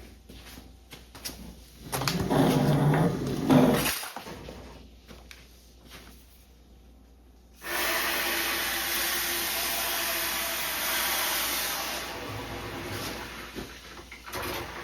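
Water suddenly rushing from a garden hose, starting about halfway through, running steadily for about four seconds and then tapering off. Before it comes a louder, low knocking and handling noise that stops abruptly.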